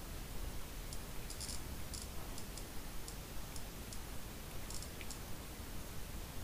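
Light, irregular clicks of a BlackBerry Bold 9900's and Bold 9000's keys and navigation buttons pressed by thumbs, about a dozen in the first five seconds, over a steady background hiss.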